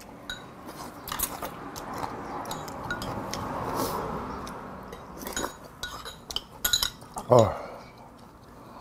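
Metal spoon and chopsticks clinking and scraping against ceramic bowls while eating. About seven seconds in comes a man's short vocal sound, falling in pitch, the loudest thing here.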